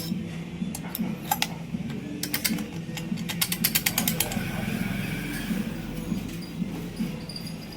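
Runs of quick, sharp mechanical clicks from hand tools and chainsaw parts being worked, over a steady low hum.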